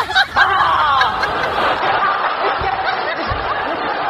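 Long, unbroken 'ha-ha-ha' laughter, a comic laugh sound effect.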